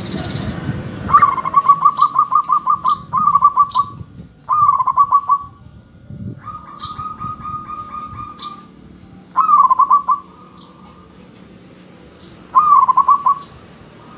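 Zebra dove (perkutut) cooing: about six quick, stuttering coo phrases, the first few close together, the later ones a couple of seconds apart, one in the middle fainter and longer.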